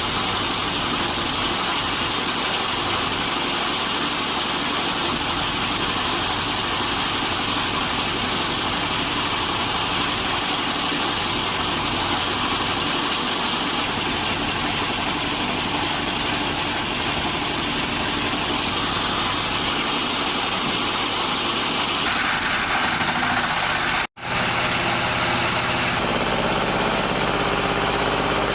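Woodworking machinery running steadily with a dense mechanical drone. It cuts out for an instant near the end and resumes with a slightly different note.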